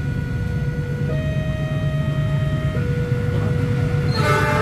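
Level-crossing warning alarm sounding: a steady electronic two-tone signal that switches pitch every second and a half or so, over a low rumble. About four seconds in, the horn of the approaching diesel locomotive begins to sound.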